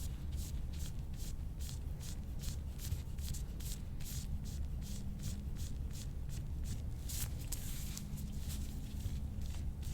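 Rhythmic rubbing strokes over skin during soft-tissue massage, about three a second, with a longer, stronger stroke about seven seconds in.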